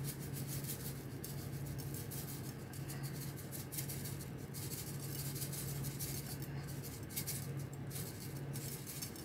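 Sesame seeds being sprinkled over a plate of sauce-glazed fried chicken: light, scattered ticks and scratches of seeds landing, over a steady low hum.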